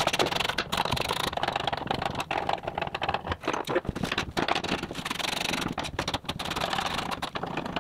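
Hand tools clicking and scraping on metal bolts and brackets, a dense, irregular clatter as the sport bar's mounting bolts are undone in a pickup bed.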